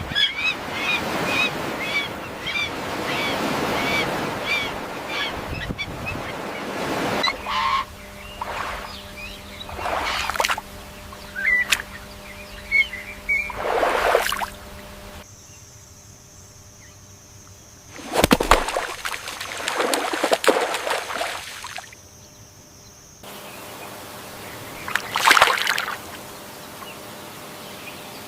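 Spliced bird sounds: a rapid run of short, repeated chirps, about three a second, over a rushing noise. After an abrupt change come several loud, short noisy bursts, with quieter stretches between them.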